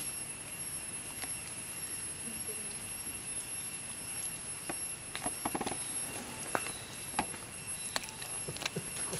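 Scattered light rustles and clicks of movement on dry leaf litter, thickest in the second half, over a steady high-pitched hum typical of forest insects.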